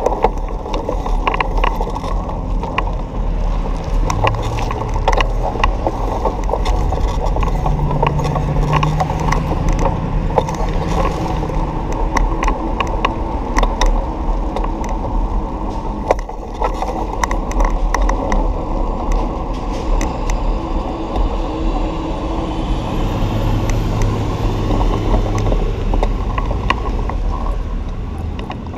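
Riding a bicycle along city streets, heard on a camera carried on the bike: a steady rumble of wind and road noise, with frequent small clicks and rattles. Passing cars' engines hum briefly a few times.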